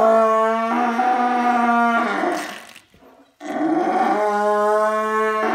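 First-calf heifer bellowing in labour as her calf is pulled out by hand: two long, loud, steady moans, the first ending about two seconds in and the second starting about a second later.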